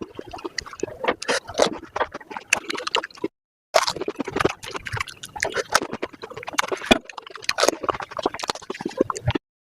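Panipuri being eaten at five times speed: rapid crunching of the crisp puri shells mixed with wet slurping and gulping of the spicy pani water, cut twice by a brief silence.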